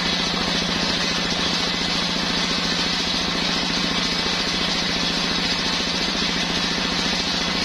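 Homemade engine-driven circular sawmill running at a steady pitch, its motor beating with a rapid, even pulse under a high, steady whine.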